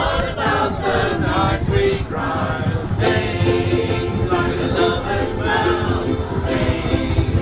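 A large group of ukuleles strummed together while many voices sing along in unison, over a steady low rumble from the moving railway carriage.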